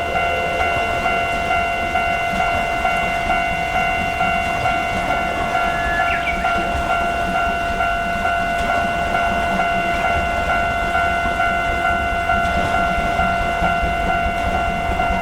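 Railway level-crossing warning bell ringing, a quick steady run of electronic dings, while a train rumbles past over the crossing.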